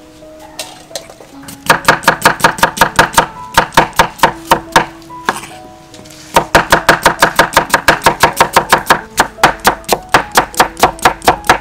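Kitchen knife slicing cucumber on a round wooden chopping board: quick, even knocks of the blade on the wood, about six a second, in two runs with a short pause in the middle. Background music plays under it.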